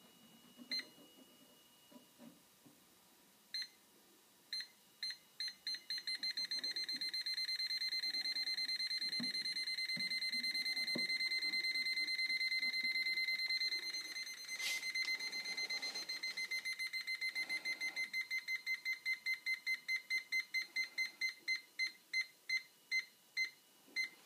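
Testo 316-4 electronic refrigerant leak detector beeping in a high tone. A few sparse beeps come faster and faster until they merge into a steady tone for several seconds, then break back into beeps that gradually slow. The fast beeping and steady tone signal refrigerant gas being picked up: a leak.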